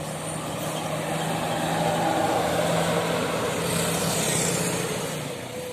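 A bus driving past. Its engine hum and tyre noise swell over the first two to three seconds, then fade away.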